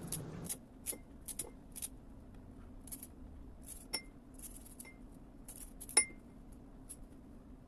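Faint, irregular light clicks and clinks of kitchen prep: celery being cut into small strips and put into a container dish. The two strongest clicks come about four and six seconds in.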